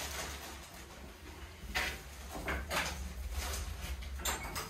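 Footsteps and a few knocks on a stone floor, then the porch's wooden door being pushed open about four seconds in.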